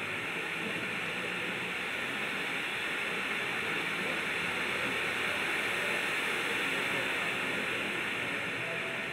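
Cone fountain firework burning, its shower of sparks giving off a steady hiss that grows slightly louder toward the middle.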